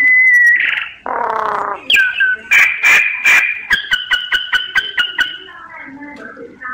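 Mynas calling in a varied song: a held whistle, then a harsh grating squawk, then sharp clicks and a quick run of repeated whistled notes, about six a second, fading into softer chatter near the end. It is a decoy myna recording, played to stir up and draw in wild birds.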